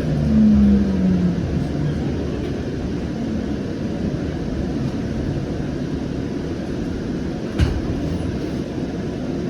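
Siemens S700 light rail car running on the track, a steady low rumble, heard from inside. In the first two seconds an electric motor whine falls in pitch as the train slows into a station. A single sharp knock comes near the end.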